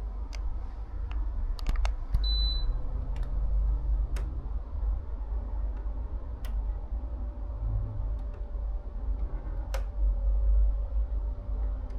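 A single short high beep from a Midea air conditioner about two seconds in, as it takes the power-off command, over a steady low rumble and a few faint clicks.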